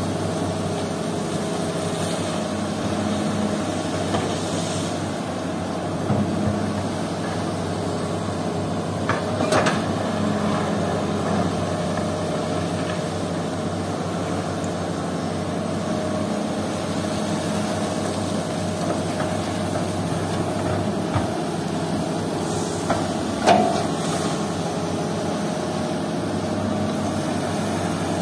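Hitachi crawler excavator's diesel engine running steadily as it digs, with a few sharp knocks, the loudest late on.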